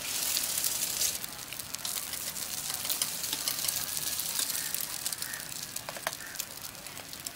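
Eggs frying in the round wells of a hot metal griddle plate: a steady sizzling hiss with scattered small crackles and pops. The hiss is a little louder in the first second, just after an egg is cracked into a well.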